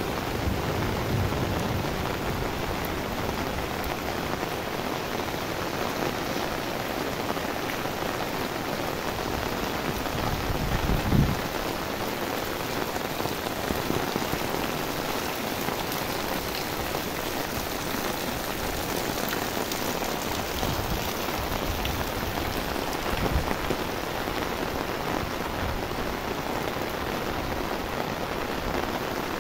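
Rain falling steadily in a dense, even hiss on the ground and surfaces. About eleven seconds in comes a brief low thump.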